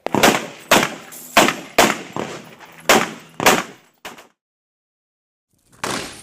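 AR-15 rifle firing a fast string of shots, roughly every half second, each with a short echoing tail. There is a sudden break, then the shooting picks up again near the end.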